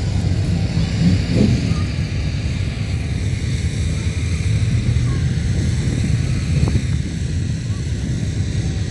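Steady low rumble of off-road rig engines running.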